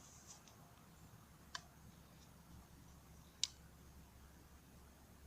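Near silence with two short, sharp clicks about two seconds apart and a fainter click near the start.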